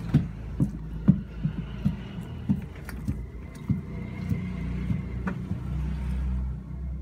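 A wooden stick stirring liquid soap mixture in a plastic basin, knocking against the basin about twice a second, over a steady low hum.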